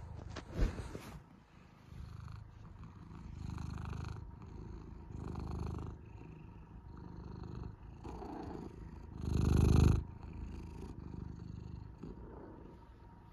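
Domestic cat purring close to the microphone, swelling and fading with each breath, one swell much louder near the end. A short sharp knock sounds just under a second in.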